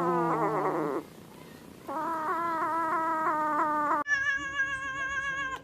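A cat yowling in long, drawn-out calls with a wavering pitch. Two calls are followed, after an abrupt change about four seconds in, by a higher-pitched held call.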